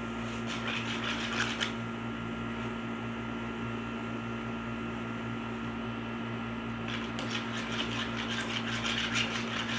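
A steady mechanical hum, joined by light crackly rustling from about seven seconds in.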